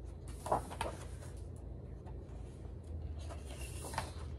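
Paper rustling as the pages of a large hardcover picture book are handled and turned: two short rustles about half a second in, and more rustling near the end.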